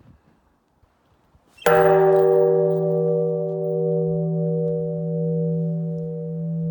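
A single sudden strike on a bell-like metal object about a second and a half in, which then rings on loudly as a low hum with several higher tones that slowly throb against each other.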